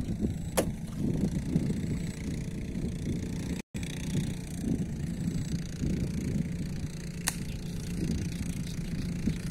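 Steady low rumbling noise, with two sharp clicks, one about half a second in and one near the end; the sound cuts out for an instant partway through.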